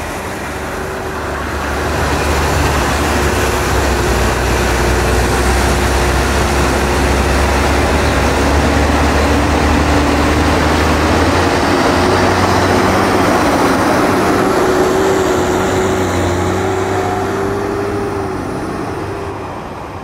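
New Holland T8040 tractor's diesel engine running under load as it pulls a loaded silage trailer past, with a steady whine over the engine note and tyre noise on the gravel track. The sound swells about two seconds in and fades near the end as the tractor moves away.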